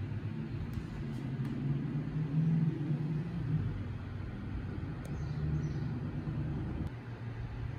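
Low, uneven background rumble that swells in the middle, with a few faint high chirps about five seconds in.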